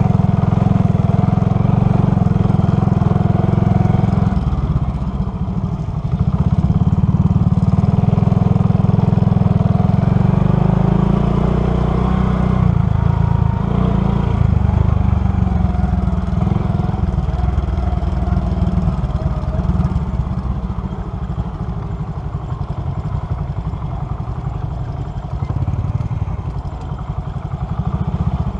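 Motorcycle engine running while riding uphill on an off-road track, its note rising and falling with the throttle, with a brief dip about five seconds in. It eases off and gets quieter over the last third.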